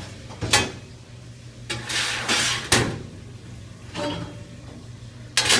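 Dishwasher parts being pulled out and handled: a few sharp knocks and clatters with a sliding scrape in the middle, over a steady low hum.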